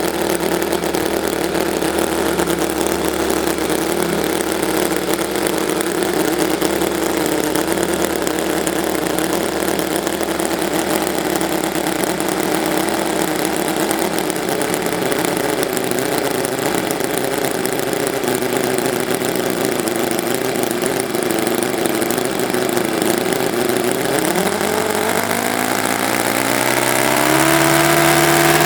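TechnoPower 9C 1/5-scale nine-cylinder four-stroke glow-plug radial model engine running steadily with its propeller. About 24 seconds in, its pitch rises over a few seconds as it speeds up, then holds at the higher speed.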